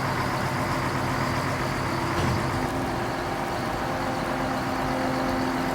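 Heavy vehicle engine running steadily, its note shifting about two seconds in.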